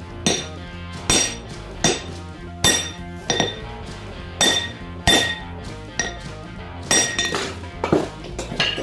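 Hand-hammer blows on a round-bar top fuller held across a red-hot steel sledgehammer head on an anvil, fullering the head: about eleven strikes, roughly one every three-quarters of a second, each with a bright metallic ring. Background music plays under them.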